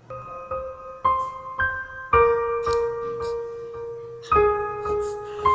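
Slow piano melody played as a 'crying' sound effect: single notes and chords struck one after another and left to ring, with one long held chord in the middle.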